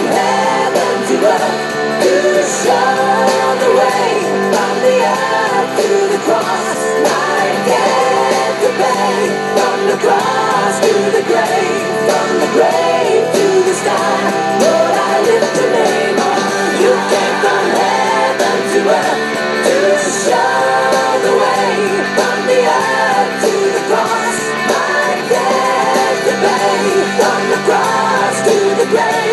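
A song with a singing voice over a band, played through a loudspeaker set beside the bowl to make the rice on the plastic wrap vibrate. The music is steady and loud, with little deep bass.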